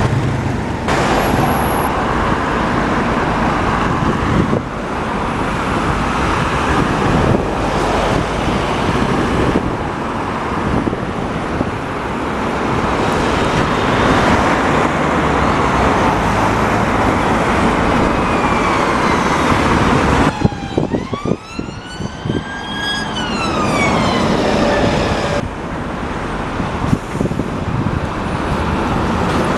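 City road traffic with buses and cars passing, a steady rumble and tyre noise. About twenty seconds in, a whining wail rises in pitch and then falls away over a few seconds.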